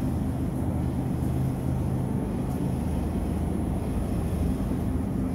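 Steady low hum of refrigerated meat display cases, several low tones held evenly over a light hiss.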